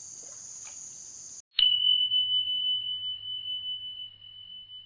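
A steady high insect chorus cuts off abruptly about a second and a half in. A single bright ding follows: one clear tone, struck once, ringing on and slowly fading.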